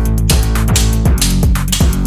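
Background music with a steady beat, bass guitar and guitar.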